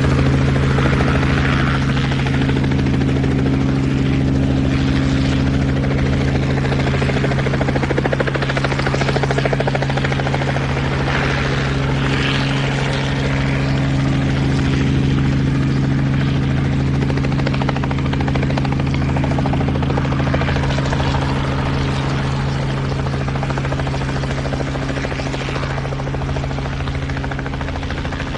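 Helicopter in flight heard from inside the cabin: a steady engine and rotor drone with a strong constant low hum, easing slightly in level near the end.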